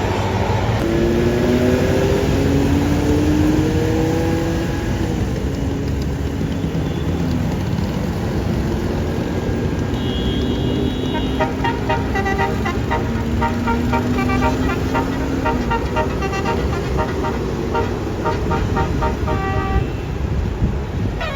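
A bus's diesel engine pulling away with slowly rising pitch over traffic rumble, then from about ten seconds in a telolet (Basuri-style) multi-tone air horn playing a quick tune of short notes for about ten seconds, starting up again at the very end.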